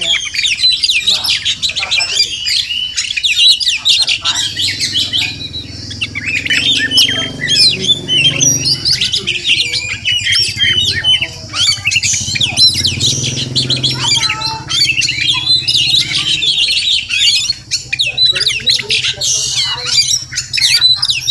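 Oriental magpie-robin singing a rapid, unbroken run of varied chirps and whistles, with some harsher notes. A low steady hum sits under the song for much of the time.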